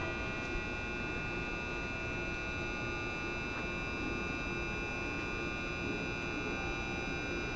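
Railway level crossing warning bell ringing without a break, a set of high steady tones with a lower tone that pulses beneath them.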